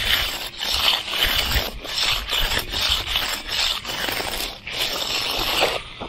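Hand concrete edger scraping back and forth along the edge of a fresh concrete slab against the form board, in repeated strokes about two a second.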